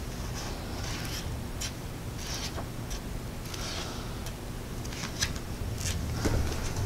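Pages of a paperback manga volume being flipped by hand: a run of short, soft paper swishes and rustles at an uneven pace. Near the end come a few soft knocks as the book is handled.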